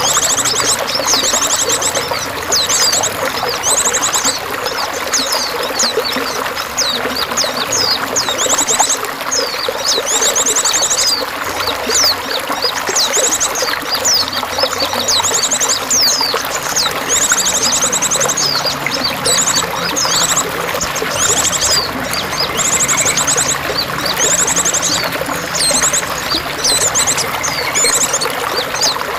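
Running water trickling and splashing steadily, with small birds chirping and giving quick, high trills over it throughout.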